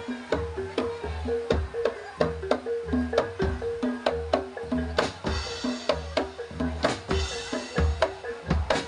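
Live jaranan dor band music: quick drum strokes over a repeating pitched melodic pattern and a deep bass beat, with cymbal crashes about five and seven seconds in.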